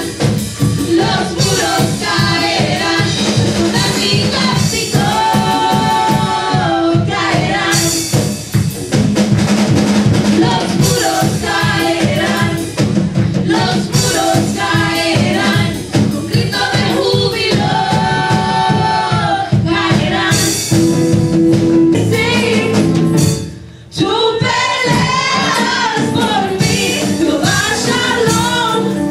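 Spanish-language gospel worship song: women singing lead and backing vocals over a band with drums and a steady beat. The music dips briefly about 23 seconds in, then comes back.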